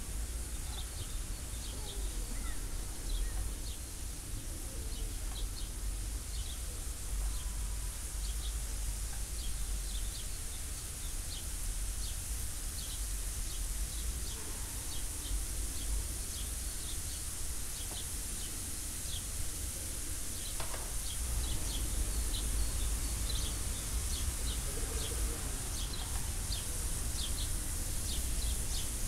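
Chopped broccoli and green beans sizzling in oil in a frying pan: a steady hiss dotted with many small, quick crackles, over a low steady hum. One sharp knock comes about two-thirds of the way through.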